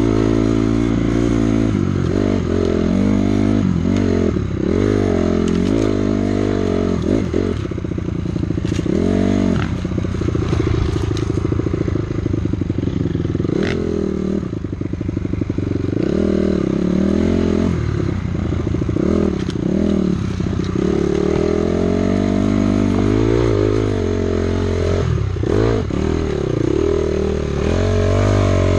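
Two-stroke dirt bike engine revving up and down constantly as the rider works the throttle along a rough dirt trail, with clattering and a few sharp knocks from the bike over the terrain.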